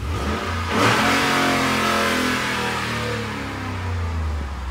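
2013 Ford F-150 SVT Raptor's 6.2-litre V8 revved up sharply about a second in, then the revs fall slowly back toward idle.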